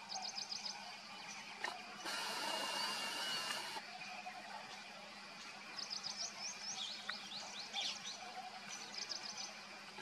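Small songbirds chirping: quick runs of short, high, falling notes, heard at the start and again several times in the second half. About two seconds in, a louder steady hiss with a thin high tone comes in for a couple of seconds and then drops away.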